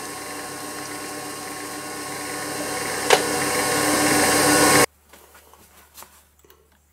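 Proxxon FF 230 mini milling machine's spindle motor running steadily with a twist drill in the chuck, growing slightly louder, with a single sharp click about three seconds in. It cuts off abruptly just before five seconds in, leaving only faint light ticks.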